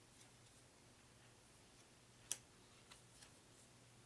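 Game cards being handled and laid down: a few faint clicks and one sharp snap about two seconds in, over a faint low hum.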